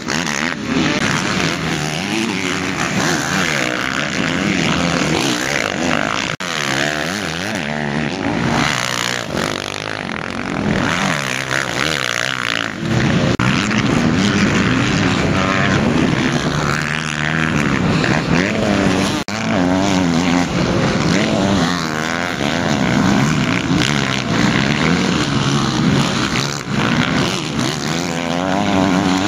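Several motocross dirt bikes' engines revving hard, their pitch rising and falling as the riders accelerate and shift through the mud and up a hill. The engines grow louder about halfway through.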